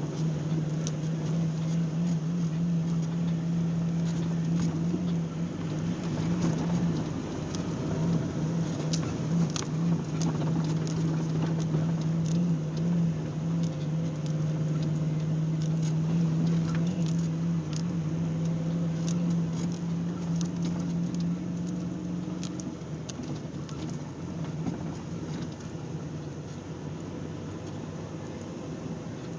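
Off-road vehicle engine running at a steady note, which drops away about three-quarters of the way through, with a dense patter of small ticks over it.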